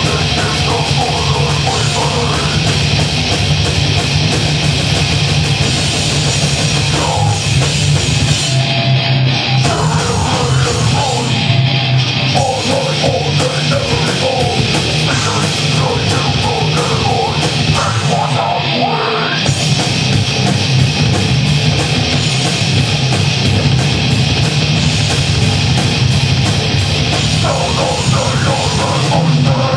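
Live rock band playing loud heavy music, with electric guitars and a drum kit.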